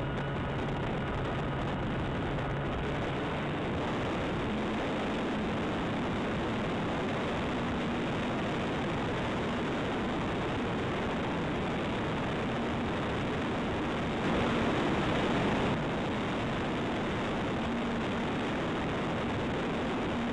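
Radio-controlled Zivko Edge 540 model aeroplane in flight, heard from on board: a steady rush of wind over the microphone with a faint motor and propeller tone that steps up in pitch about four seconds in. A brief louder patch comes about fourteen seconds in.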